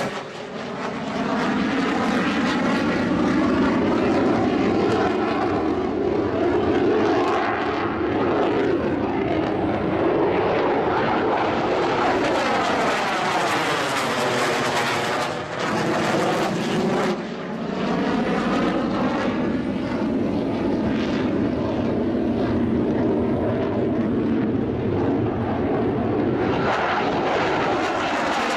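Jet noise from an F-4 Phantom II's twin J79 turbojets as it flies low overhead. The noise holds loud and steady, with a sweeping, phasing sound as the jet passes, and it dips briefly a couple of times.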